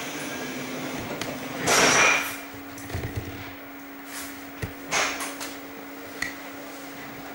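Munich U-Bahn train standing at a station platform, heard from inside the carriage: a short loud hiss about two seconds in, then a few scattered knocks and clunks over a steady low hum.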